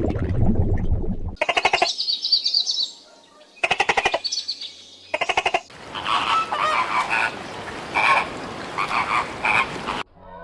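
Frogs calling: three short, rapid pulsed trills, then a run of repeated higher croaking calls.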